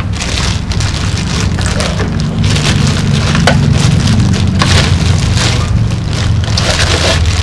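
Crinkling and rustling of plastic packaging as small parts are handled, in irregular crackly bursts over a steady low hum.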